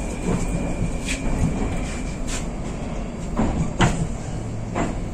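Moskva 2020 metro train running noise inside the car as it comes to a stop at a station. A thin whine cuts off about two seconds in, and a handful of sharp clicks and knocks follow.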